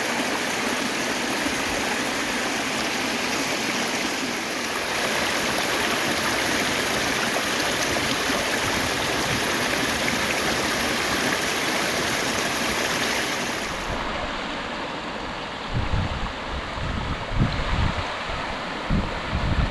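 Water rushing steadily along a rain-swollen canal. Near the end the sound changes and gusts of wind buffet the microphone.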